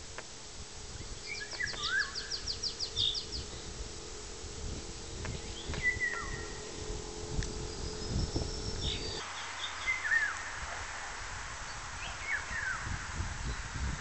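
Nightingale singing in short separate phrases with pauses between them: one a fast run of about a dozen repeated high notes, the others short whistles and slurred notes. A low rumble on the microphone runs underneath.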